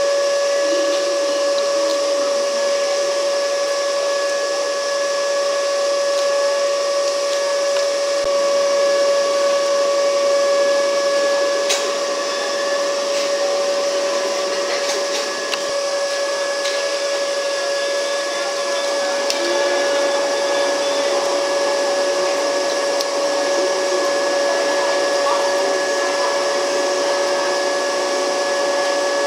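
Kumoya 145 electric car standing at the platform with its auxiliary machinery running: a steady whirring hiss with a constant high whine. A lower hum joins about two-thirds of the way through.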